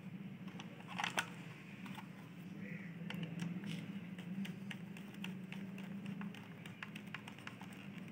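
Small irregular clicks and ticks of a screwdriver working the screws of a plastic extension-board casing as it is closed up, with a louder knock about a second in. A steady low hum lies underneath.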